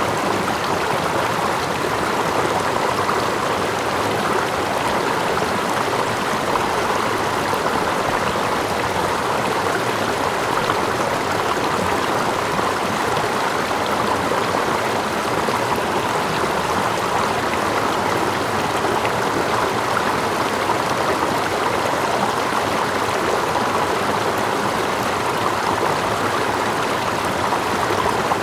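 Steady rushing of running stream water, even and unbroken, with the sound of water lapping close by and a small waterfall further off blended in.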